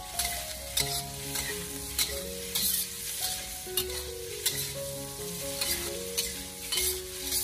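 Cubed pork belly sizzling in hot oil in a wok while a metal spatula stirs it, scraping against the wok about once or twice a second. The meat is being stir-fried over medium-low heat to render out its fat.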